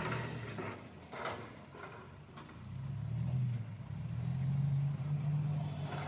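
Logging truck's engine running, easing off between about one and two and a half seconds in, then picking up speed and holding a steady, higher hum. There are a couple of knocks, one at the start and one about a second in.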